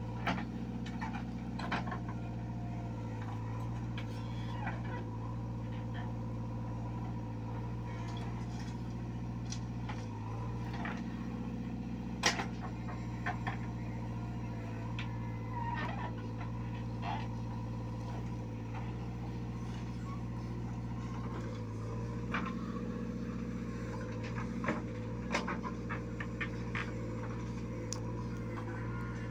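JCB 3DX backhoe loader's diesel engine running steadily under working load while the backhoe digs soil. Scattered sharp knocks and clanks from the bucket and soil are heard, the loudest about twelve seconds in.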